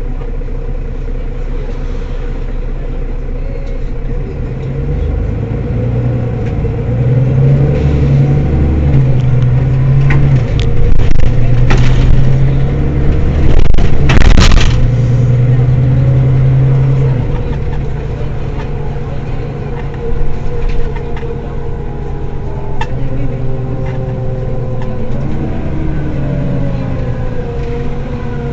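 Mercedes-Benz Citaro city bus's diesel engine pulling and building up speed, its pitch stepping up through gear changes and loudest about halfway, then easing off. A sharp clack about halfway through, and falling whines near the end as it slows.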